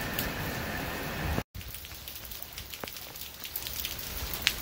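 Rain falling in a steady hiss; after a brief cut about one and a half seconds in, quieter rain with individual drops ticking close by.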